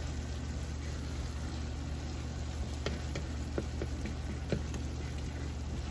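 Hamburger Helper pasta and sauce simmering in a skillet with a soft, steady bubbling hiss over a low steady hum. A few light clicks come from a wooden spatula stirring against the pan.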